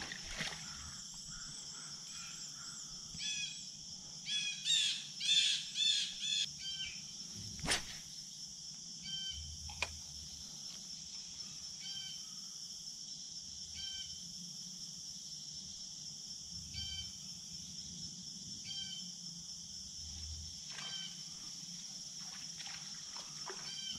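Birds calling over a steady, high drone of insects. A burst of calls comes about three to seven seconds in, then a single short call about every two seconds. There is one sharp click about eight seconds in.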